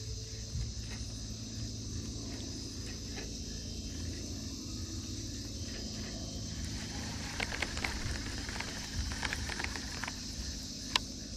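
Steady chorus of insects, with scattered small clicks and taps from hands working a baitcasting reel and its line, and one sharper click near the end.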